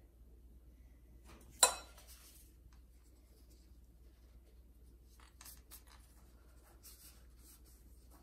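One sharp clink about one and a half seconds in, a metal spoon set back into a glass bowl of ground almonds, followed by faint rustling and soft ticks of phyllo pastry being rolled up by gloved hands.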